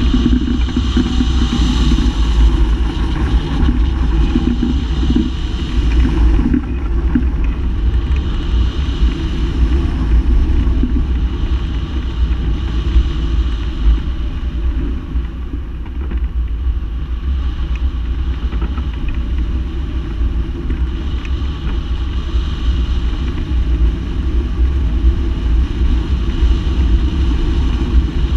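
Wind rushing over the microphone of a wing-mounted camera on a hang glider in flight: a loud, steady low rumble of air noise.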